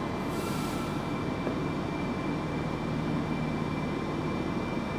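Railway station platform ambience: a steady hum and rumble from trains and station equipment, with a low steady tone that fades out about four seconds in.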